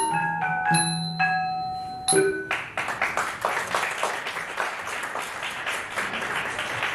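Khong wong lek, a Thai circle of small tuned bossed gongs, struck with mallets in the last few ringing notes of a piece, ending about two seconds in. Audience applause follows and continues to the end.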